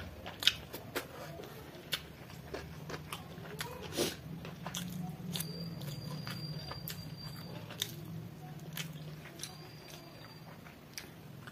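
A person chewing mouthfuls of chicken biryani eaten by hand, with frequent sharp wet mouth clicks, loudest about half a second in and again around four seconds in.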